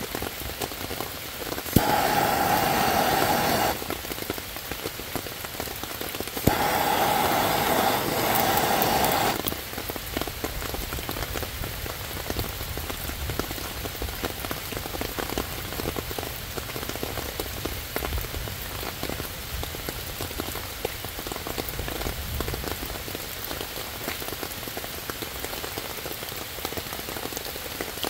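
A hand-held gas torch blasting its flame onto wet kindling twice, a steady hiss about two seconds and then about three seconds long, within the first ten seconds. Steady rain patters on leaves and ground throughout.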